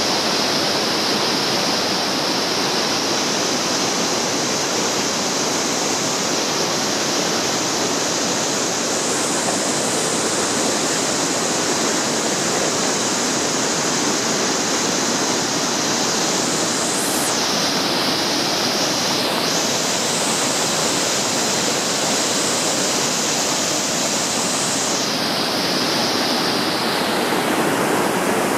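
Water at Iguazu Falls rushing over river rapids and the brink of a waterfall, a loud, steady, unbroken noise.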